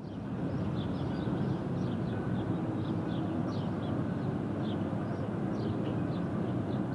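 Outdoor field recording: a steady low rumble with birds chirping repeatedly over it.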